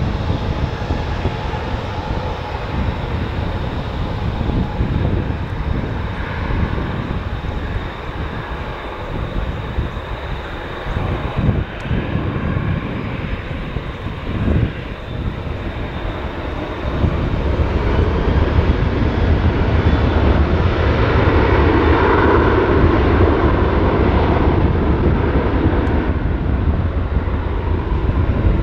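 Boeing 737-800's CFM56-7B turbofan engines running on the runway, then spooling up to takeoff thrust about two thirds of the way through and staying louder and deeper as the takeoff roll begins.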